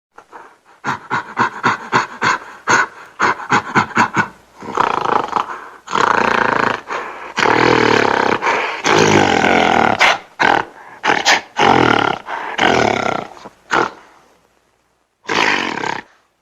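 Gorilla vocalising: a quick run of short calls, about four a second, then a series of long loud roars, with one last short roar near the end.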